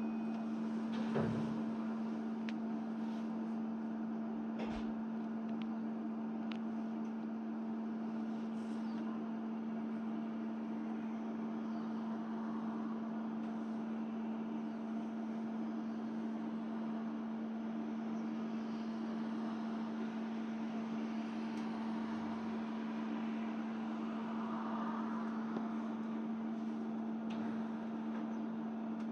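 Steady hum of a stationary electric train's onboard equipment heard from inside the carriage: one constant tone with a few faint clicks.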